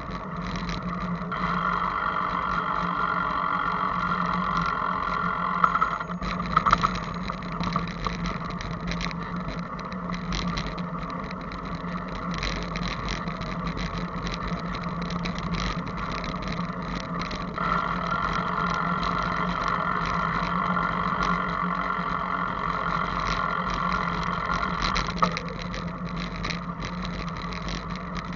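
Steady riding noise from a camera on a moving bicycle: wind and tyre noise over a steady low hum, louder in two long stretches, with a few sharp knocks about six to seven seconds in.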